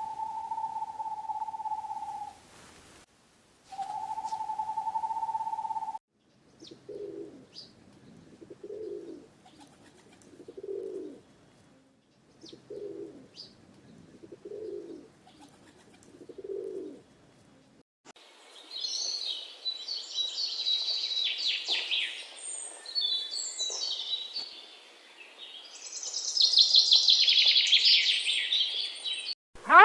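A run of bird calls: two long, steady hoots of owl-like tone, then six low coos about two seconds apart in the manner of a pigeon or dove, then rapid high-pitched chirping from about eighteen seconds in.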